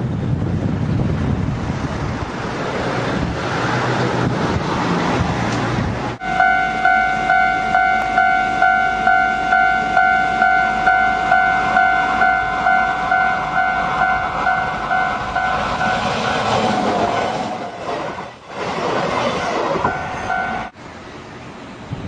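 Japanese railway level-crossing alarm ringing, a pitched electronic bell pulsing about twice a second, as a train approaches and passes with a swelling rush of wheel and track noise. It opens on a rushing rumble, and the bell stops abruptly near the end.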